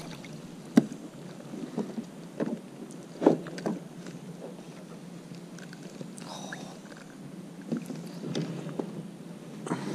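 Light knocks and taps of fishing gear, the rod and landing net, bumping against a plastic kayak, about eight short hits spread irregularly over a faint steady background.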